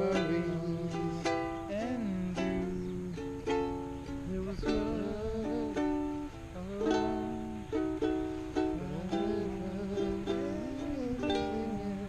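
Ukulele strummed in steady chords, with a man's voice humming the melody along with it, without words.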